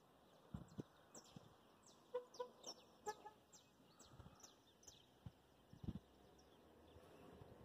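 Faint bird calls: a short run of low clucking notes between two and three seconds in, amid quick high chirps that fall in pitch. A few soft low thumps come about half a second in and near six seconds.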